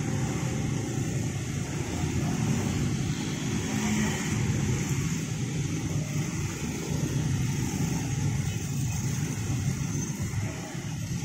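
Many motorcycle engines idling together in a waiting crowd of traffic, a steady low rumble with no single event standing out.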